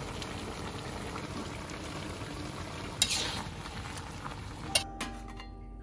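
Prawns sizzling and bubbling in a buttery sauce in a metal pan, with a metal spatula scraping through them about three seconds in and a sharp clink near the end, after which the sizzling drops away.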